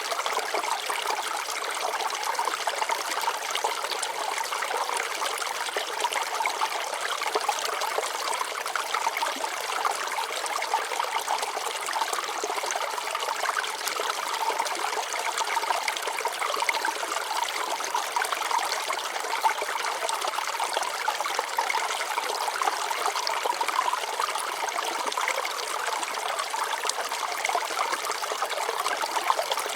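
Shallow stream of water flowing and trickling over rocks, a steady babbling that never lets up.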